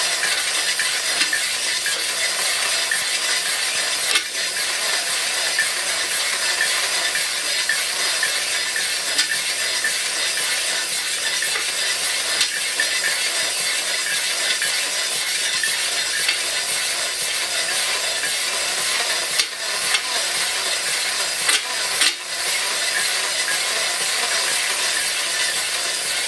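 Electric drill spinning a flexible-shaft stone cylinder hone inside the cylinder bore of a Briggs & Stratton 14.5 HP OHV engine, the stones grinding steadily against the fluid-wetted cylinder wall. The drill is running a little faster than ideal for honing. A few brief knocks come about 4, 19 and 22 seconds in.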